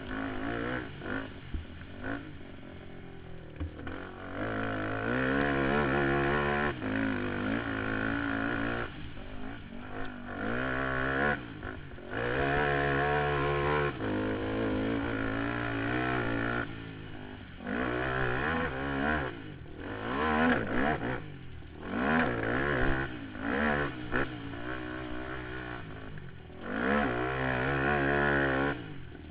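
Suzuki Z400 sport quad's single-cylinder four-stroke engine ridden hard: over and over it revs up with its pitch climbing, then drops sharply as the throttle is closed, every few seconds.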